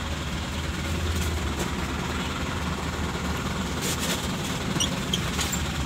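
Truck engine running steadily at idle, heard from inside the cab, with a few faint clicks around four to five seconds in.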